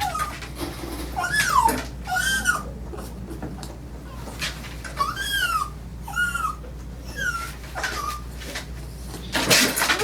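Dog whining over and over: high cries that each rise and fall in pitch, about one a second, with a short rush of noise near the end.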